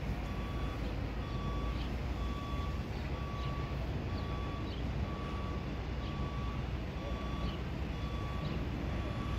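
Reversing alarm on construction machinery beeping steadily, one beep about every three-quarters of a second, over a low steady rumble.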